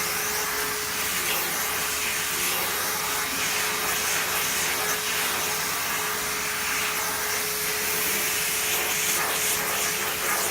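Vacuum cleaner running steadily: a loud even hiss of rushing air with a constant motor whine.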